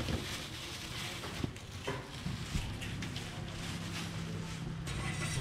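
Seafood market stall ambience: plastic bags rustling and baskets being handled, with a few light knocks over a steady low hum.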